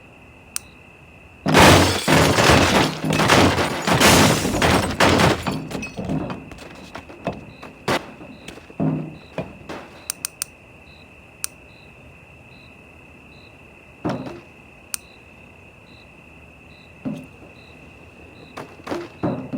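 A house coming apart in demolition: a few seconds of loud crashing as timber and debris break and fall, then scattered sharp cracks, snaps and thuds.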